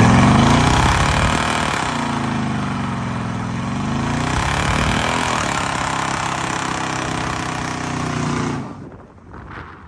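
An engine revving: its pitch climbs quickly, dips and rises again, then holds loud and fairly steady before cutting off abruptly near the end.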